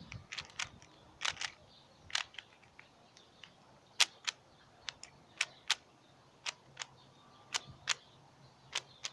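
Rubik's cube being scrambled by hand: its plastic layers turning with sharp clicks at an uneven pace, often two in quick succession.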